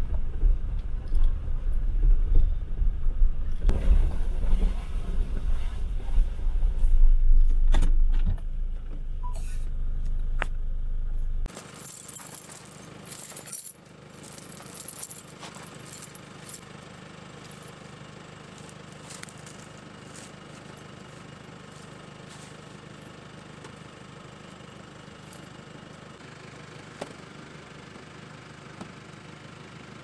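Jeep Wrangler driving over a rough dirt track: a heavy low rumble with knocks and rattles, cut off suddenly about eleven seconds in. Then a steel tyre snow chain being handled, clinking and jangling for a few seconds, followed by a much quieter steady background with a few faint clinks.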